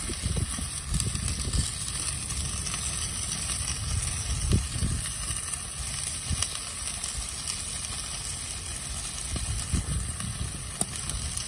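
Chicken pieces sizzling in a hot cast-iron pan inside a Roccbox pizza oven: a steady, bright hiss with an uneven low rumble underneath.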